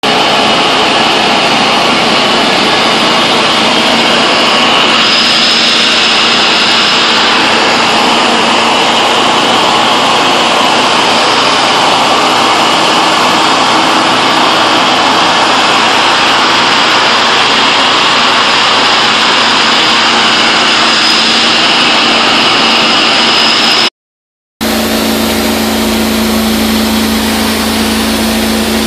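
Carpet steam-cleaning extractor running on Berber carpet: a loud, steady rush of suction and spray with a high whine over it. It cuts off about 24 seconds in and comes back with a deeper steady hum.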